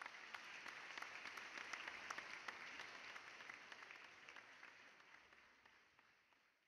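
Faint applause from many hands, fading in and then fading out near the end.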